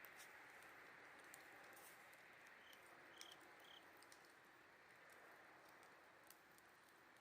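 Faint campfire crackling, with scattered sharp pops, over a steady chorus of autumn insects; three short insect chirps about three seconds in.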